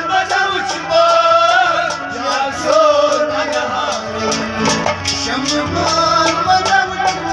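A man singing a Kashmiri folk song over harmonium accompaniment, with a steady beat of percussion strokes.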